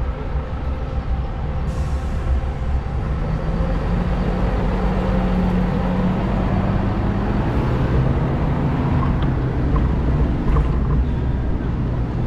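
Street traffic and road noise heard from a moving bicycle: a steady low rumble, with a vehicle engine humming for several seconds through the middle.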